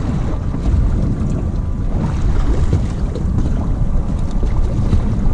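Wind rumbling on the microphone aboard a boat trolling slowly, with its Suzuki 350 outboard running and water washing past the hull; steady throughout.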